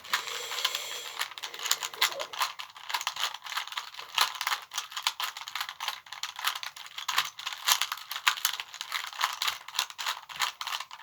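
Plastic Rubik's Cube being turned quickly by hand, a dense, irregular clatter of clicks as the layers snap round during the last-layer moves of a speed solve.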